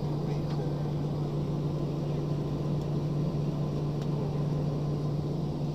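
Steady drone of a twin-jet airliner's engines heard inside the passenger cabin while the plane rolls on the ground, with a constant low hum under it.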